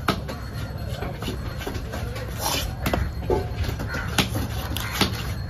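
Heavy fish-cutting cleaver chopping through a large fish's head into a wooden chopping block: a few separate sharp chops, about one at the start and three more in the second half, over a steady low background rumble.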